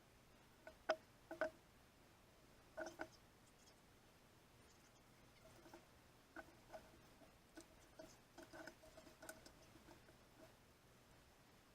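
Faint, scattered light taps and knocks of hard objects being handled on a hard surface. A few come about a second in and near three seconds, then a looser run of them later on; many of them ring briefly at the same pitch.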